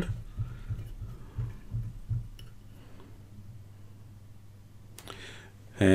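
Faint low hum with a few soft low bumps in the first two seconds as the Grundig Trento valve radio's tuning dial is wound down to 600 on the medium-wave scale. There is a single short click about five seconds in.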